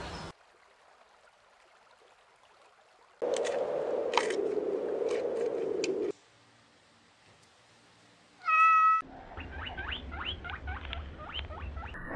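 Giant panda chewing bamboo, a few seconds of crunching with sharp snaps, which stops abruptly. After a pause comes one short pitched animal call of about half a second, the loudest sound here. Then a run of quick clicks over a low hum.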